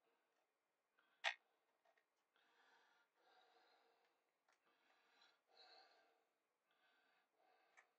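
Near silence, broken by one sharp click about a second in and a fainter one near the end, with faint scratchy noise in between: a metal pry tool working under a laptop's bottom cover and its plastic catches.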